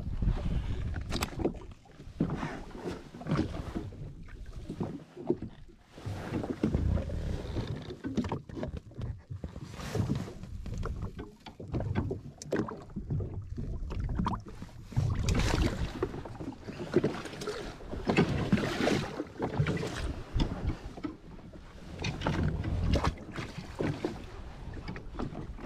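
Wind and water noise around a jet ski on the sea, coming in uneven gusts and splashes with no steady engine note.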